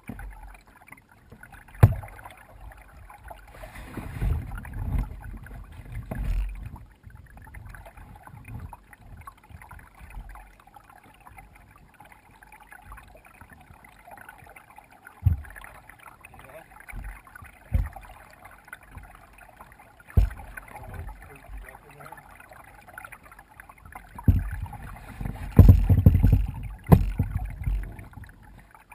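A kayak being paddled, heard from a camera mounted on its bow: water moving along the hull and paddle strokes, with a few sharp knocks. Louder low rumbling stretches come about four to six seconds in and again near the end.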